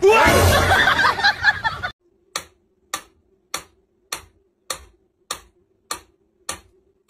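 A loud, noisy sound for about two seconds, then a clock ticking evenly, a little under two ticks a second, over a faint steady hum. The ticking is most likely a sound effect laid into the edit.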